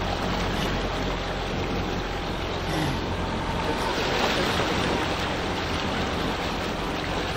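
Steady rushing noise of ocean surf rolling and breaking, swelling a little about four seconds in.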